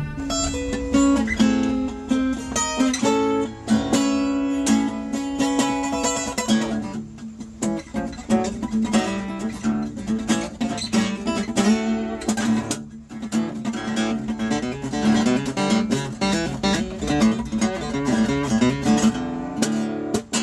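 Acoustic guitar played in a quick mix of picked runs and strums, over a held low note, with a couple of brief pauses.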